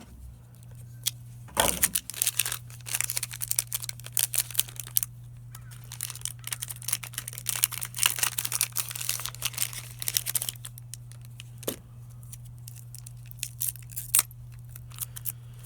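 Plastic parts packaging crinkling and crackling as it is handled and opened, dense for several seconds and then in a few scattered crackles, over a steady low hum.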